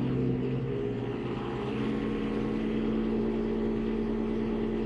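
John Deere tractor's diesel engine running, heard from inside the cab. Its pitch shifts during the first two seconds, then holds steady.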